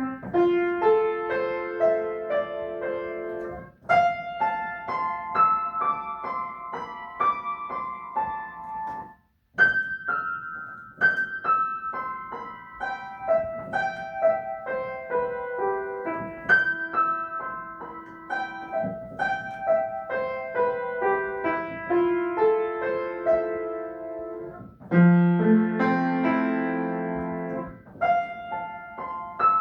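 Solo piano playing a gentle, slow piece of chords and melody, with a brief stop about nine and a half seconds in before the playing resumes.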